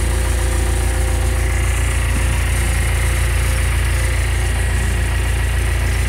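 Self-loading concrete mixer's diesel engine running steadily, heard from inside the operator's cab.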